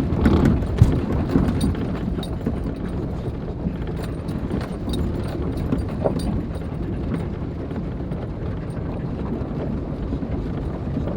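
Cabin noise of a 1998 Jeep Wrangler's V6 crawling over a rocky trail: a steady low rumble with irregular knocks and rattles as the Jeep bounces over rocks, one sharp knock about a second in.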